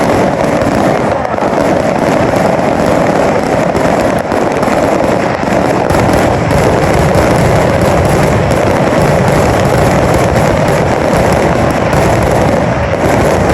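Fireworks going off in a dense, continuous barrage of bangs and crackles with no pause.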